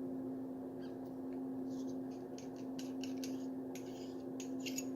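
Faint small metal clicks and scrapes as the tip is unscrewed from an espresso machine's detached steam wand, over a steady low hum.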